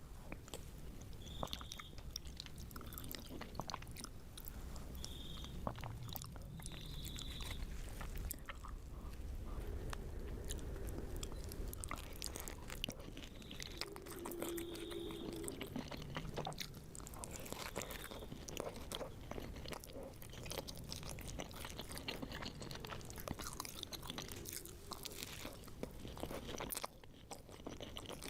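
Close-miked eating: crunchy bites and continuous chewing, with dense irregular crackles.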